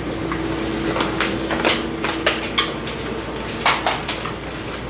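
Cutlery and dishes clinking at a hot pot table: a handful of scattered sharp clinks over a faint steady hum.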